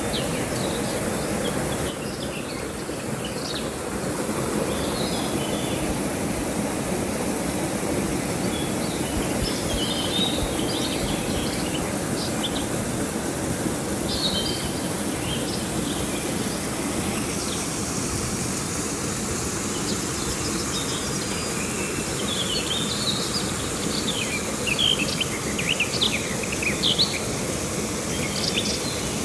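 River water rushing steadily, with birds chirping in short calls over it, busier in the last several seconds.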